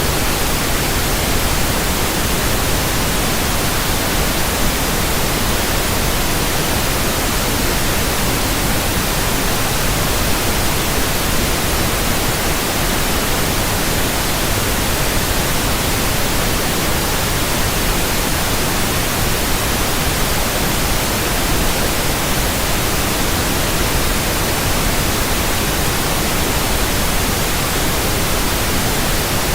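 Static: a steady, even hiss of white noise spread across the whole range from low to high, unchanging throughout.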